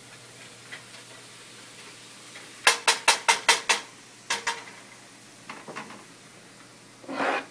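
Kitchen clatter at the stove: a quick run of six sharp clacks, about five a second, then two more and a few lighter ones. Near the end comes a short rushing burst.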